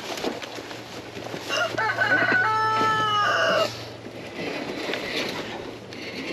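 A rooster crows once, a call of about two seconds that begins about a second and a half in. Dry brush crackles and rustles around it.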